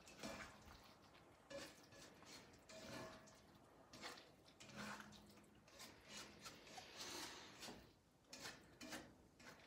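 Faint scraping and soft clatter of a slotted spatula stirring chicken and scallions in sticky glaze in a wok, in irregular strokes about once a second.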